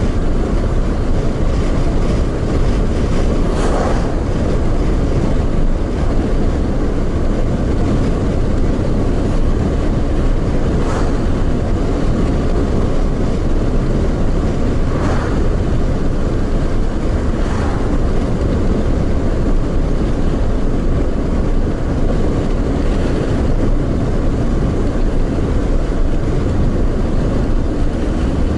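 A car driving at road speed: a steady low rumble of tyre and road noise, with a few brief whooshes along the way.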